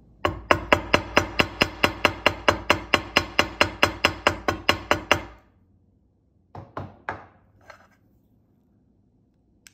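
Metal hammer tapping the 18-gauge wire loop of a wire-wrapped bead link on a bench block: over twenty quick, even, ringing strikes at about five a second, stopping about five seconds in, then a few light knocks. The hammering flattens and work-hardens the wire so the loop stays stiff.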